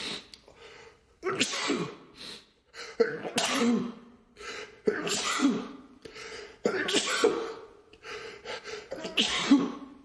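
A man's sneezing fit: a run of about six loud sneezes, roughly one every one to two seconds. It is an allergic fit, blamed on cat allergy.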